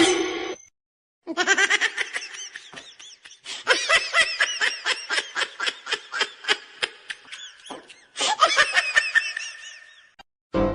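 High-pitched giggling laughter in rapid repeated bursts, coming in three long runs separated by short breaks.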